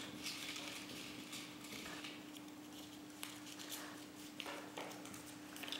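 Faint rustling and small taps of a folded paper slip being drawn from a cut-glass bowl and unfolded by hand, over a faint steady hum.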